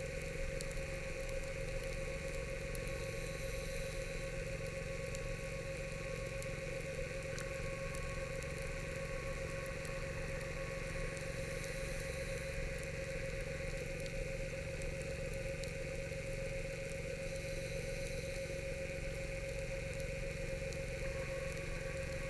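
Underwater scooter (diver propulsion vehicle) running steadily: an even electric motor whine with a low hum that holds at one speed throughout.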